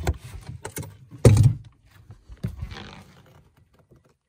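Handling noises in a fishing boat: a run of small knocks and taps, one loud thump just over a second in, then a short rustle, as a caught northern pike is taken from the live well and laid on a measuring board.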